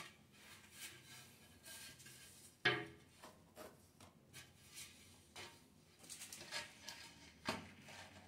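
Faint scrapes and light knocks of a wood-look floor tile being set onto combed tile adhesive and pressed down by hand, with two louder knocks, one about two and a half seconds in and one near the end.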